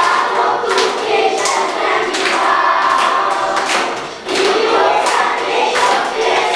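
A class of children singing a song together in chorus, over music with a steady beat. The singing breaks off briefly about four seconds in and picks up again.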